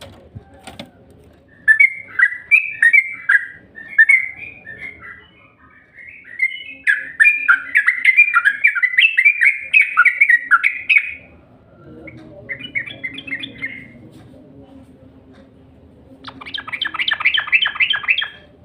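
Yellow-vented bulbul (trucuk) song used as a lure recording: phrases of quick, bubbly warbled notes, then after a pause a fast run of sharper rising notes near the end.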